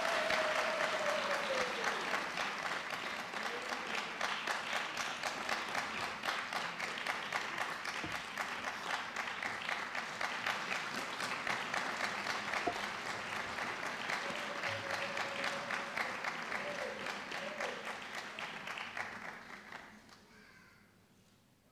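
Audience applauding steadily, with a few voices calling out over the clapping. The applause fades away near the end.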